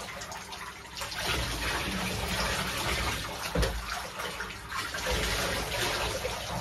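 Bathwater being scooped with a plastic jug and poured over a dog standing in a bathtub, an uneven sloshing and splashing, with one sharper thump about three and a half seconds in.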